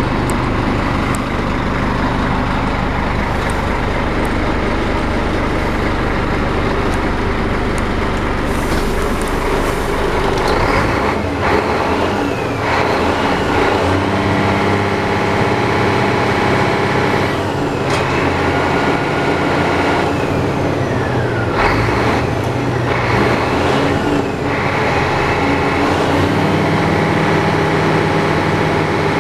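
Scania eight-wheel tipper's diesel engine running steadily, its note shifting several times, with a couple of short falling whines.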